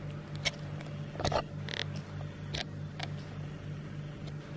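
A steady low hum with a few light clicks and a short rustle about two seconds in.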